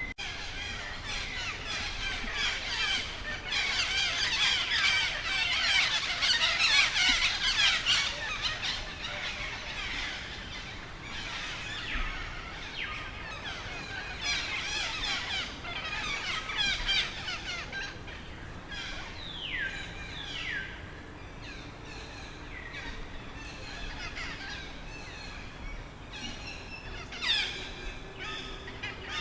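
Baby macaque squealing in fear: rapid high-pitched squeals and chirps, thickest and loudest about four to eight seconds in, with several falling squeals later on and one sharp, loud call near the end.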